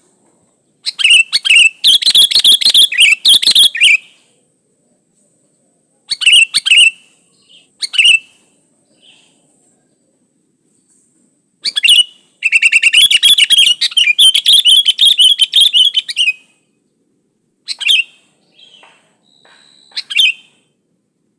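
Sooty-headed bulbul (kutilang) singing in bursts of rapid chattering notes: two long phrases of about three to four seconds, with short calls of a second or less between and after them.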